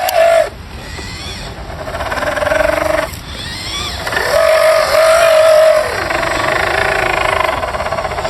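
Small electric drive motor and gearbox of a 1/12-scale RC crawler whining as the throttle is worked. The whine cuts out sharply about half a second in and again around three seconds, then holds steady for a while before dropping in pitch.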